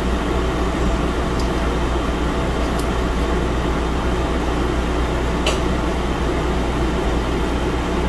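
Steady low room hum and hiss, with a few faint ticks from handling the tools.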